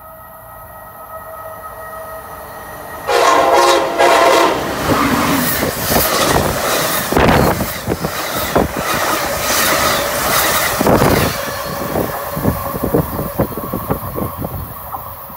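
Amtrak train on the electrified Northeast Corridor approaching at speed: a horn blast starts about three seconds in, given for a trackside horn request, and its pitch drops as the locomotive passes. The coaches then rush by with rapid clickety-clack of wheels over the rails, fading as the train goes away.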